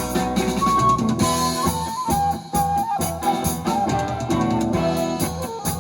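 Rock band playing an instrumental passage with electric guitar and drum kit.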